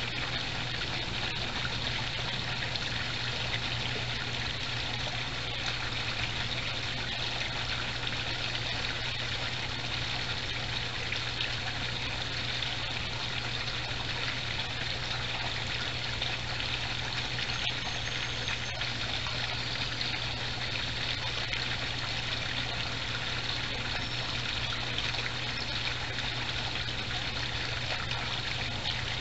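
Steady trickling and splashing of water from a backyard koi pond, with a steady low hum underneath.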